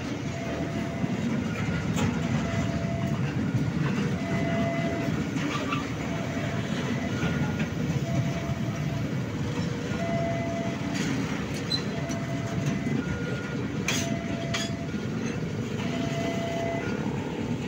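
Freight train of oil tank wagons rolling slowly past: a steady rumble of wheels on rail with an occasional clack at the rail joints. A short tone repeats about once a second, the level crossing's warning signal.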